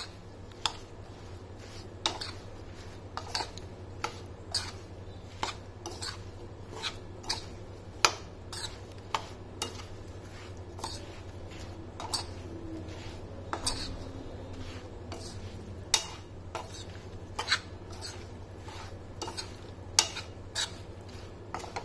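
A spoon stirring and tossing spice-coated jackfruit pieces in a metal pan, with irregular sharp clinks of the spoon against the pan, about one or two a second.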